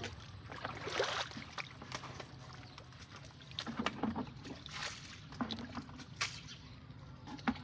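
Hands and rubber boots sloshing and splashing in shallow muddy water, in short irregular bursts.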